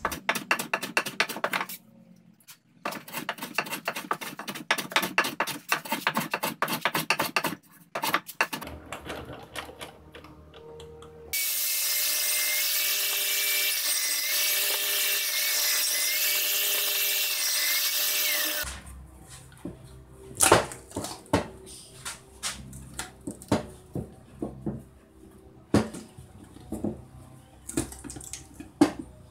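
A hand plane scraping across the end grain and sides of a box-jointed wooden box in quick, dense strokes. Midway a steady power-tool whir runs for about seven seconds, and near the end come scattered knocks and taps of wood being handled.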